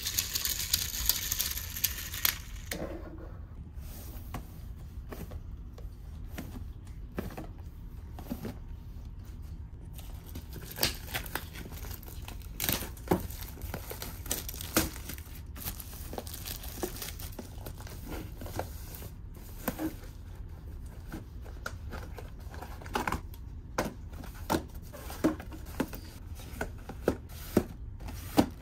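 Clear plastic shrink wrap crinkling and tearing as it is peeled off a cardboard box, in scattered sharp crackles and clicks. Small cardboard boxes tap onto a wooden table near the end, after a brief hissing whir in the first two seconds.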